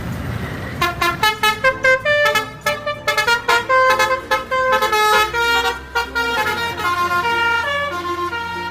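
Indonesian 'telolet' bus horn, a set of musical air horns, playing a quick tune of short, separately pitched blasts, several a second, after a brief noisy burst at the start.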